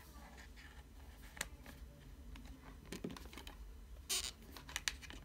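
Faint clicks and handling noise as a power cord's small barrel plug is worked into the socket at the back of an aroma diffuser, with a brief scrape about four seconds in.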